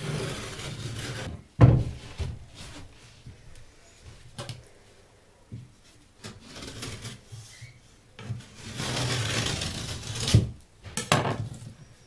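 Drywall (gypsum board) being cut by hand along marked lines: long rasping strokes of a blade through the board, two of them over a second long, with shorter scrapes between. Several sharp knocks stand out, the loudest just after the first long stroke.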